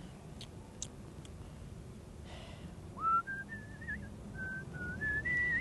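A person whistling a tune of short held notes that step up and down, starting about three seconds in. A few faint clicks come before it.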